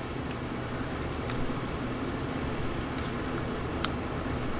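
Steady background hiss with a low hum, broken by two faint clicks as the plastic case of a handheld radio is handled and snapped together.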